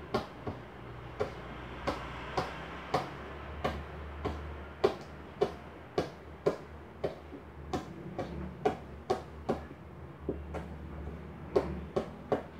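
Kitchen knife chopping calamansi leaves on a plastic cutting board: sharp knocks of the blade on the board, about two a second, in a steady rhythm.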